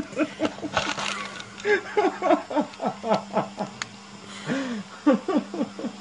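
Domestic cat making quick, short grumbling calls while eating, several a second, each dropping in pitch, with a little crackle of chewing. A steady low hum runs underneath.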